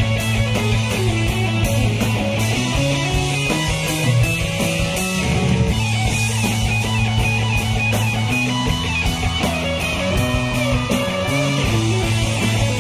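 A live rock band playing electric guitar over bass and drums, with a steady beat of cymbal and drum hits.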